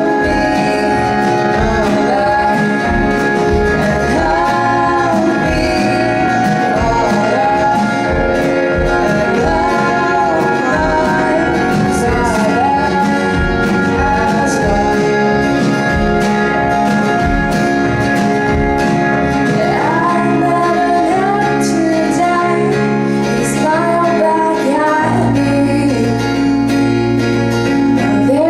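A live student band playing a song: a voice sings the melody over guitar and a steady drum beat, with the bass line shifting about 25 seconds in.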